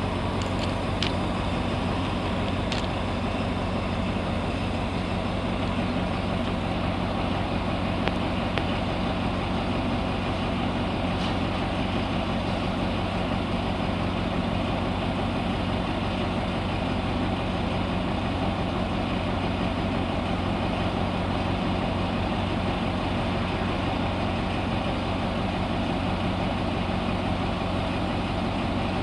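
Alsthom AHK-class diesel-electric locomotive's diesel engine running steadily at low revs with an even, low hum.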